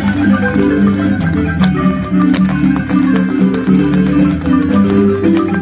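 Marimba music: a lively Chiapas folk dance tune with fast repeated notes over a steady beat.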